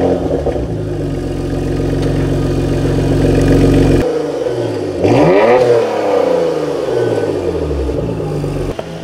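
Porsche Macan GTS twin-turbo V6 idling steadily, heard close at the quad tailpipes. About five seconds in it is revved once: the revs climb quickly, then fall back slowly over the next few seconds.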